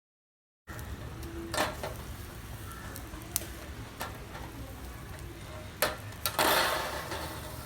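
Chicken sizzling on a charcoal grill, starting suddenly under a second in, with a few sharp clicks and a louder burst of noise about six and a half seconds in.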